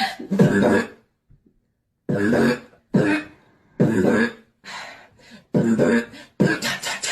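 Human beatboxing, mouth-made vocal percussion. A short burst comes first, then a pause of about a second, then a steady run of beats.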